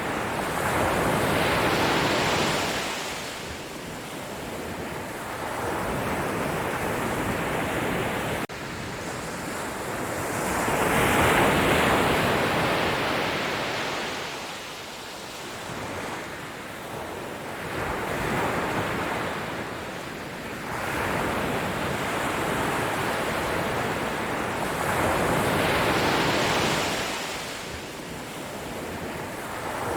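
Sea waves breaking, the surf swelling and falling back in slow surges about every seven to nine seconds, with an abrupt break in the sound about eight seconds in.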